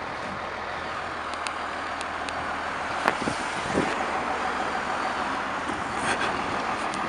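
Street traffic on a wet, slushy road, with tyres hissing past and a low steady hum from the stopped fire truck's idling diesel. A few sharp clicks, the loudest about three seconds in.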